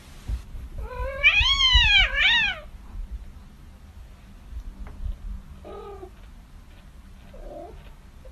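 Cat meowing: one loud, drawn-out meow about a second in that rises and falls in pitch and runs into a shorter second one, then two faint short meows later.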